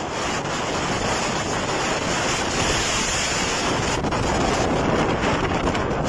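Strong storm wind buffeting the microphone, a steady rushing noise of the gale through thrashing trees.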